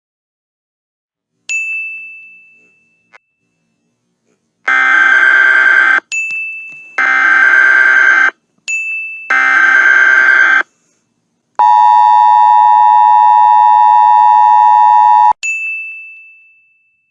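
Emergency Alert System alert tones: a chime, then three bursts of SAME header data tones with a chime between them, then the two-tone attention signal held for about four seconds, ending on another chime.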